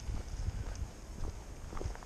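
A person's footsteps walking on a tarmac path, about two steps a second, over a steady low rumble.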